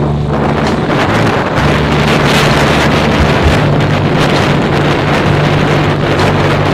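Wind rushing hard over the microphone of a moving motorcycle, over a steady low engine drone.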